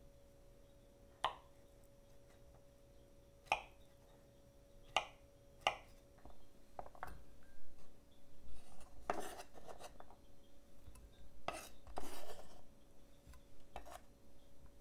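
A kitchen knife chops soft candied chestnuts on a wooden cutting board, giving six or so separate sharp knocks. From about halfway through come denser scraping and rustling sounds as the diced chestnut pieces go into a glass bowl, with a faint steady hum underneath.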